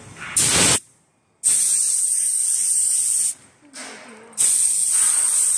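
Four-head CNC perforating machine working a sheet in loud bursts of high hiss, three of them: a short one near the start, a longer one of about two seconds in the middle and another near the end. Each starts and stops abruptly.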